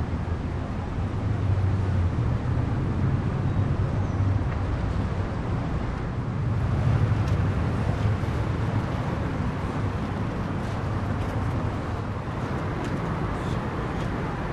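Low, steady rumble of a large ro-ro passenger ferry's diesel engines as it sails out past close by, with a haze of harbour noise; the rumble is strongest in the first half and eases a little after about eight seconds.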